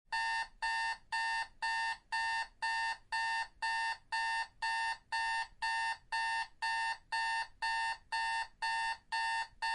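Electronic timer alarm beeping: short beeps of one steady pitch, about two a second, starting suddenly out of silence. This signals that the 20-minute countdown has reached zero.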